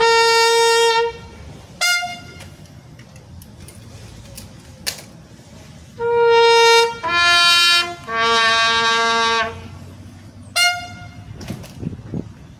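Military bugle call: long held notes at a few different pitches, with short notes between them and a pause of several seconds in the middle.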